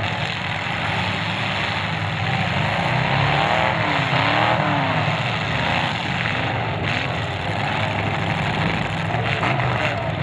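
Engines of several demolition derby cars running at once, revving up and down as the cars push around the dirt arena.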